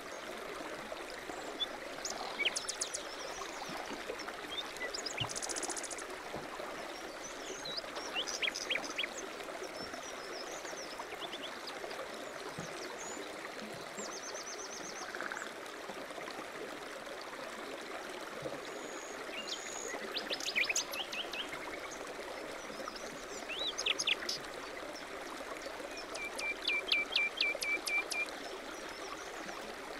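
A small stream runs steadily while songbirds chirp, trill and whistle over it. Near the end one bird gives a fast run of repeated notes, about five a second.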